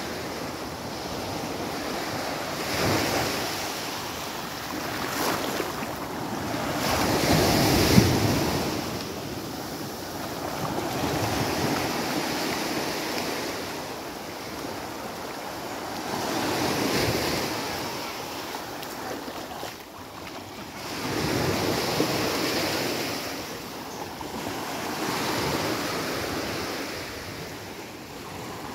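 Small sea waves breaking and washing up a sandy beach, the surf swelling and fading every four to five seconds, with wind buffeting the microphone. A short sharp click about eight seconds in.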